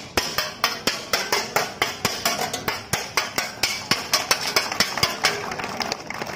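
Kalaripayattu sword-and-shield sparring: metal blades striking shields in a steady rhythm of about four clashes a second. Near the end the strikes turn lighter and quicker.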